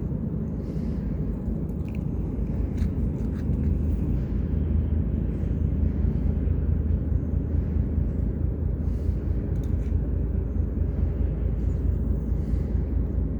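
A steady low outdoor rumble that swells slightly a few seconds in, with a few faint ticks above it.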